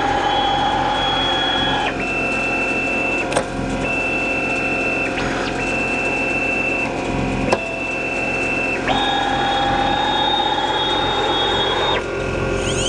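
DIY CNC router running a milling job: its motors whine at steady pitches that switch to a new pitch every one to three seconds as the moves change, over a steady hum, with two sharp clicks.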